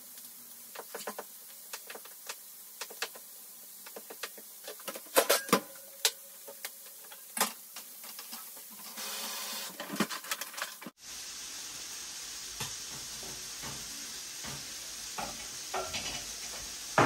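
Kitchen prep: a knife cutting paneer on a wooden chopping board and a wooden spoon stirring chickpeas in a frying pan, heard as scattered irregular clicks and knocks with a light sizzle.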